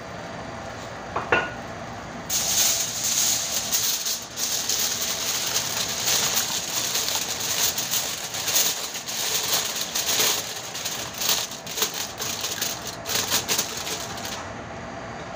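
Sheet of aluminium foil crinkling and crackling as it is stretched over a stainless-steel cooking pot and pressed down around the rim, sealing the pot so the pulao rice can steam (dum). It starts about two seconds in, after a single short knock, and stops shortly before the end.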